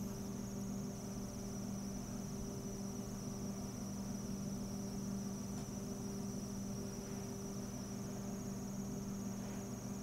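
Steady background hum with a thin, high-pitched whine above it, unchanging throughout, with no distinct events.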